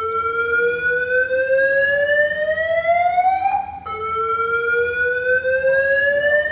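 Airport alarm sounding a slow siren-like whoop: a tone climbing steadily in pitch for nearly four seconds, dropping back and climbing again, twice.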